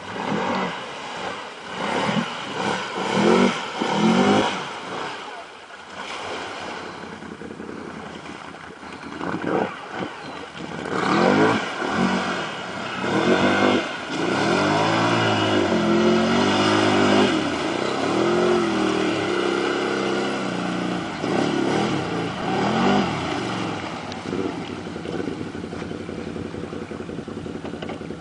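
Can-Am Renegade 800 ATV's V-twin engine revving while the quad churns through water, the pitch climbing and dropping over and over as the throttle is worked for water wheelies, with water splashing. It gets louder about eleven seconds in.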